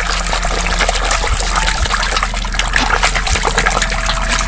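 Muddy, frothy water splashing and sloshing in a basin as a hand scrubs a small plastic toy under the surface.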